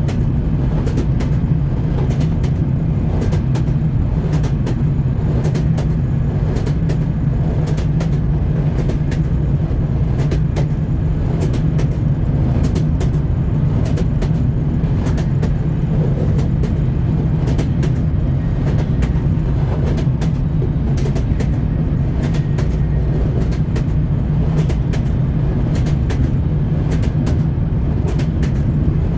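Train wheels knocking over rail joints: a steady low rumble with sharp clicks about once or twice a second, the rhythmic clickety-clack of a moving railway car.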